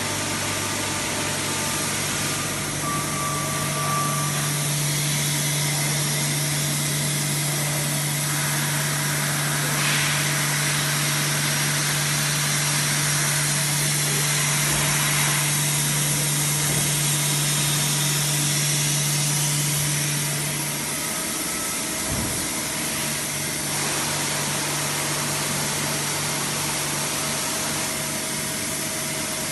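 Steady hum and hiss from the running auxiliary equipment of a powered-up Okuma MX55 VA vertical machining center: electric motor-driven pumps and cooling units. A low hum tone drops away about two-thirds of the way through, followed shortly by a brief low thump.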